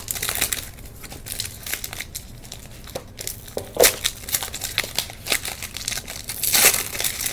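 Foil wrapper of a 1996-97 Topps Finest basketball card pack being peeled and torn open by hand, crinkling and crackling. The crinkling is louder near the end.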